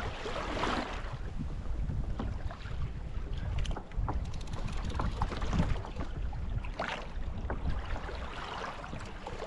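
Wind rumbling on the microphone while choppy sea water slaps and splashes against a kayak hull, the splashing swelling every second or two.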